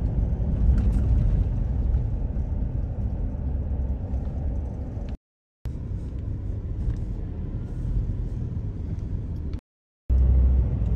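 Car driving, its engine and road noise heard as a steady low rumble inside the cabin. The sound cuts out to silence twice, briefly: about five seconds in and again near the end.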